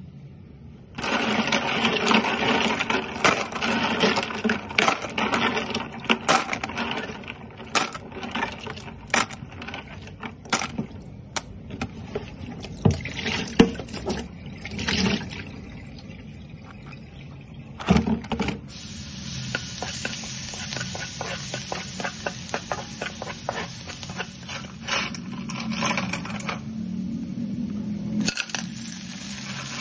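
Snail shells clattering and clicking against each other in water as snails are washed. About two-thirds of the way through, it cuts to chopped garlic sizzling in hot oil in a pan: a steady hiss with fine crackles.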